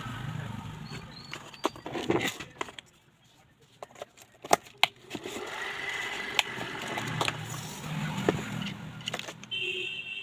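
Irregular clicks and knocks, as of hard parts being handled and set down, over a low hum. The sharpest knocks come about halfway through.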